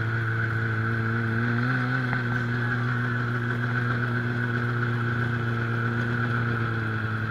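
Snowmobile engine running steadily, heard from the rider's seat, its pitch rising briefly about two seconds in.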